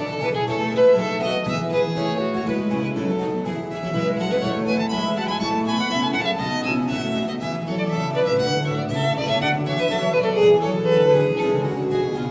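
Baroque trio-sonata ensemble of two violins, cello and harpsichord playing a fast movement, the violins carrying quick lines over the cello bass and the harpsichord's continuo.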